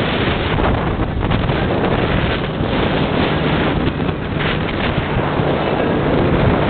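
Wind buffeting the microphone on a moving Sea Ray motorboat, over the steady low hum of its engine.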